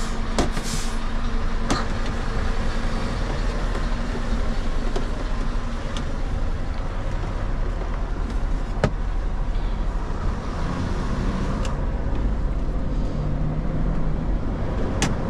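Road train prime mover's diesel engine and road noise heard from inside the cab while driving: a steady low hum with a few sharp clicks.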